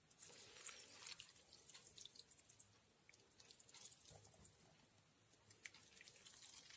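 Faint wet squelches and small irregular clicks of vinegar-marinated sliced onion being squeezed out and laid by hand onto a salad layer.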